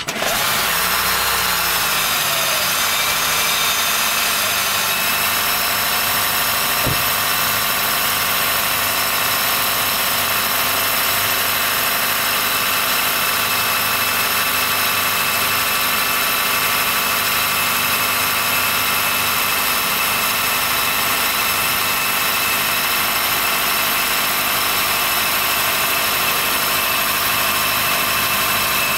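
Honda Fit Hybrid (GP5) starting cold, then running steadily with a high-pitched squealing whine held over the engine sound (a kiri-kiri, kii-kii squeal). A brief tick sounds about seven seconds in. The squeal occurs only when cold, below about 10 °C, and stops once the car has warmed up; the dealer takes it to be harmless.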